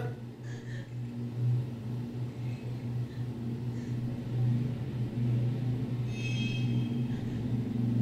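Low, steady rumbling drone from the anime episode's soundtrack, swelling and easing, with a brief high shimmering chime about six seconds in.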